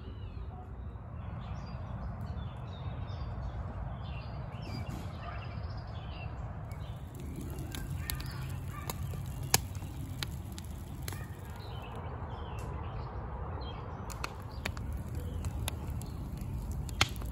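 Birds calling over a steady low rumble. From about seven seconds in, the irregular sharp pops and crackles of a wood fire burning.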